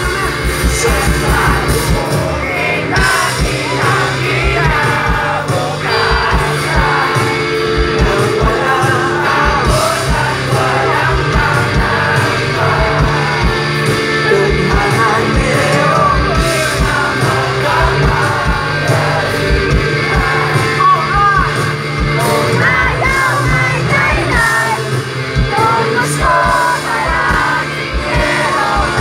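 Live rock band playing loudly through a stage sound system, with electric guitars, bass and drums under a sung vocal line, heard from amid the audience.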